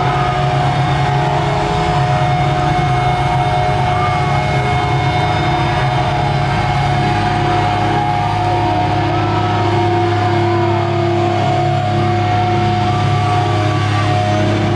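Loud, steady droning from the band's amplified guitars on stage, a few held notes ringing with feedback and amp hum between heavy songs.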